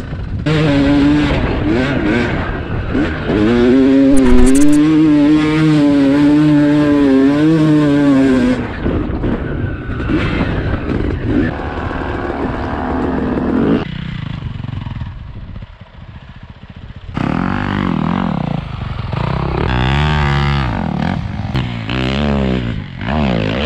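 Dirt bike engines revving, their pitch rising and falling again and again, dropping away for a few seconds around the middle before picking up again.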